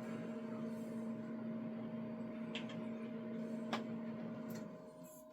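Steady machine hum that drops away near the end, with two light clicks in the middle.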